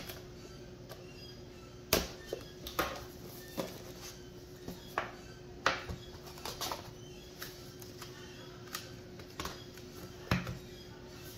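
Cardboard phone box being cut open with a knife and unpacked: scattered sharp clicks, light knocks and scrapes of the box, its lid and the Samsung Galaxy S23 Ultra being handled and set down on a wooden table, over a faint steady hum.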